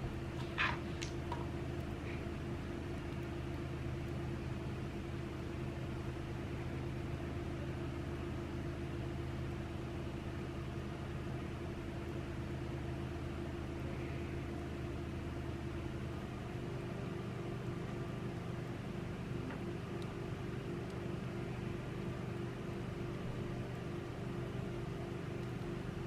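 A steady low machine hum, like a fan or appliance running, whose tones shift about sixteen seconds in; a single click sounds just after the start.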